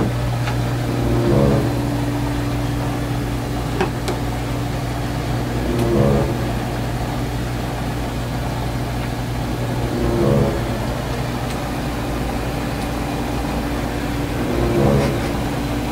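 Hot tub's pump and jets running with a steady mechanical hum and churning water, swelling briefly about every four to five seconds.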